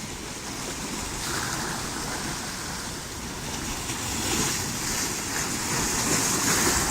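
Sea surf washing in, with a steady hiss that swells a little about a second in and again from about four seconds on.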